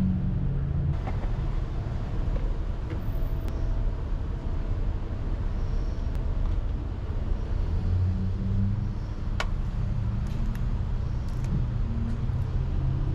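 Steady low rumble of a motor vehicle, with pitched engine-like bands that rise and fade and a few light clicks.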